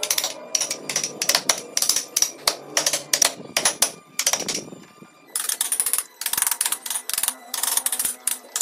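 Hand-held woodcarving gouges cutting and scraping into a wooden horse relief: quick, crisp strokes about four a second, a short pause about halfway, then denser runs of scraping cuts.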